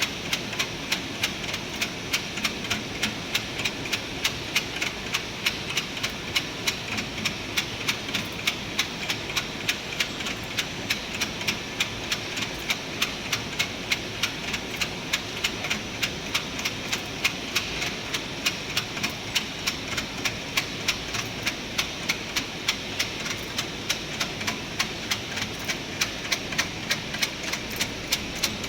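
Fried instant noodle production line running: a steady machinery noise with a regular mechanical clack about two to three times a second.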